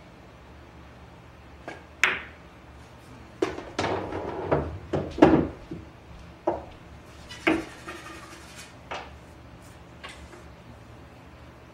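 Pool balls knocking and clacking together on a pool table: a string of sharp, irregular hits, thickest around the middle, where balls also rumble across the table.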